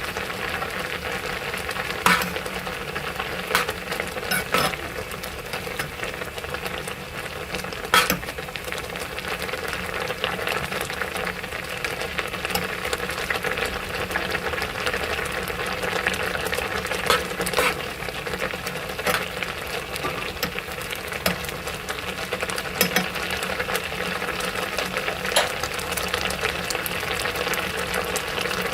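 A pot of honey, orange and lemon juice, ginger, garlic and cloves sizzling steadily as it cooks on low heat, the honey melting into the mixture. Sharp clicks come now and then, several times over the stretch.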